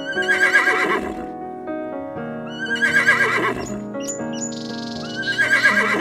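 An animal's wavering call, about a second long, heard three times about two and a half seconds apart, over background music of steady notes.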